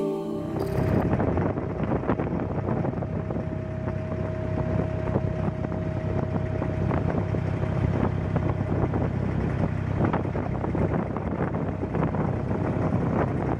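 Engine of a small wooden abra water taxi running steadily under way, a low even hum with a faint steady whine in it, and wind buffeting the microphone.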